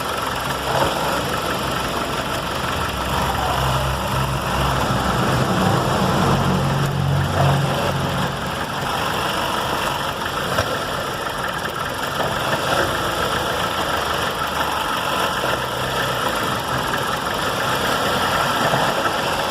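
Fiat Freemont engine idling steadily, its hum heavier from about three to nine seconds in, with a couple of faint knocks from the suspension. The car has a clunk from the suspension when shifting between reverse and forward, which the mechanic traces to the lower control arm.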